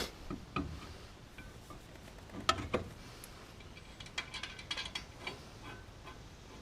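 Hand tools working on steel suspension parts: a few metallic knocks and clanks in the first three seconds, then a quick run of ratchet-wrench clicking about four seconds in, as a ball joint nut is run down on the steering knuckle.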